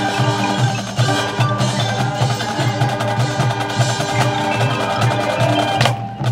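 High school marching band playing: sustained low brass chords over a pulsing beat from the drums and the front ensemble's marimbas and other mallet percussion. The music briefly drops off just before the end.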